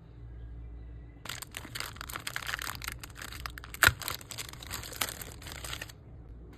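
Packaging crinkling and tearing as it is unwrapped, starting about a second in and stopping sharply near the end, with one sharp snap in the middle.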